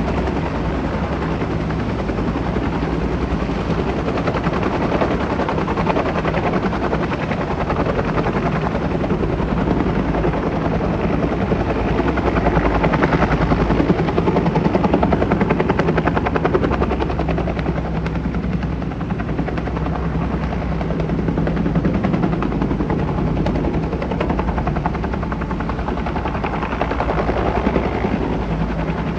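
Helicopter hovering with a loaded sling line, its rotor making a steady fast chop over a low engine drone. The sound swells a little louder around the middle.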